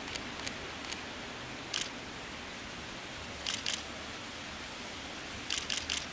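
Camera shutter clicks, some single and some in quick runs of two or three, over a steady hiss.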